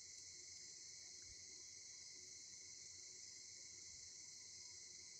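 Faint, steady insect chorus: a continuous high-pitched drone that never breaks, with a weaker, lower band under it.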